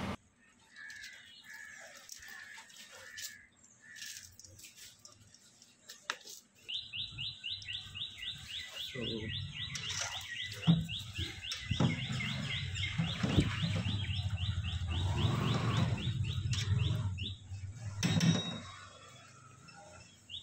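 A bird calls with a fast, even run of downward-sweeping chirps, about five a second, lasting some ten seconds, after a few short repeated notes near the start. Under it, a wooden spatula stirs chicken pieces and water in a steel pot, with low scraping and knocks.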